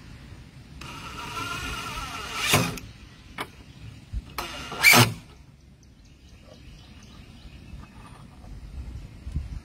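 Cordless drill driving screws into cedar fence boards. The motor whirs for about two seconds, with a sharp crack near the end of the run. A second short burst with a loud crack comes about five seconds in, followed by a few small clicks.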